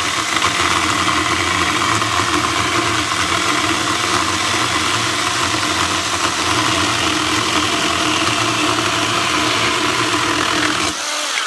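Kimo 20V cordless pole chainsaw running at full speed, its 8-inch chain cutting steadily through a 4x4 of softwood lumber clamped in a vise. Just before the end the trigger is released and the motor winds down with a falling whine.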